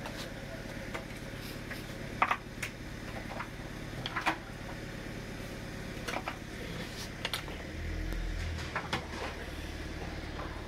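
Scattered light clicks and knocks, roughly one a second, as cooked trotter and bone pieces are handled in earthenware clay pots, over a steady low hum. There is a brief low rumble about eight seconds in.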